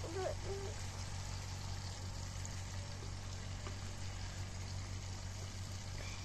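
Aloo matar (potato and pea curry) cooking in a pan, with a steady sizzle and bubble over a low steady hum.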